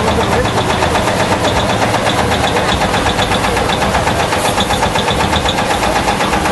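Vintage tractor engine running with a rapid, even knocking beat as it tows a flower float past at close range.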